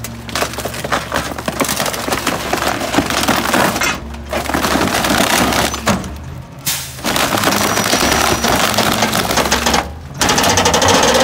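Garbage truck compactor crushing bulky furniture: dense cracking and splintering of wood in three long stretches broken by brief pauses, over the steady low drone of the truck's engine.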